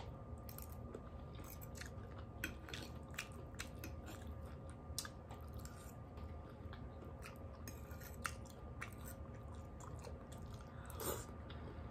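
A person chewing food with the mouth close to the microphone: soft, irregular mouth clicks and crunches, quiet, over a faint steady hum.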